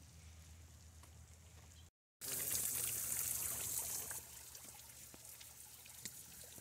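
Water pouring and splashing into a tub of koi, a strong hiss for about two seconds that then eases to a softer trickle with small splashes.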